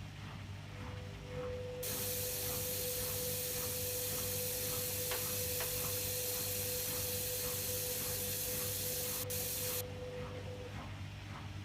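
Beko washing machine taking in water: a loud steady hiss of water rushing in for about eight seconds, then cutting off abruptly, over a steady whine and the machine's low hum with faint regular ticking.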